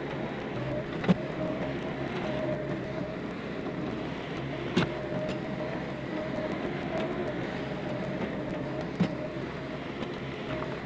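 Bobcat S185 skid-steer loader's diesel engine running steadily with a whine while it pushes dirt with its bucket. Three sharp knocks stand out, about four seconds apart.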